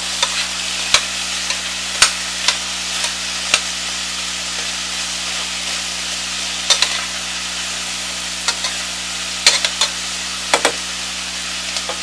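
Garlic, onion and fresh thyme sizzling in olive oil in a stainless steel pot while being stirred, with a steady hiss and a scatter of sharp clicks and scrapes of the utensil against the pot.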